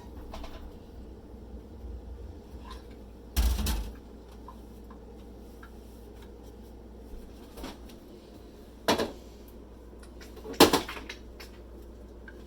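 Kitchen clatter of pots and cupboard doors: a dull thud about three seconds in, then two sharp knocks near the end, the last the loudest, over a low steady hum.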